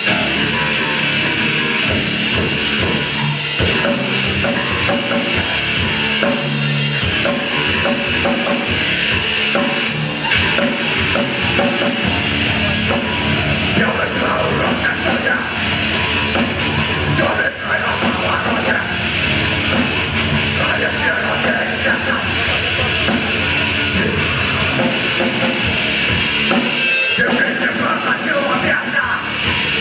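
Live heavy rock band playing loudly, with distorted guitars and a drum kit.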